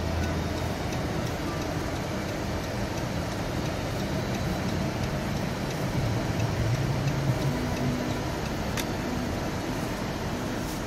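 Car engine and tyre noise heard from inside the cabin during a slow turn on snowy pavement. The engine's low hum rises briefly about six seconds in, and there is a single sharp click a couple of seconds later.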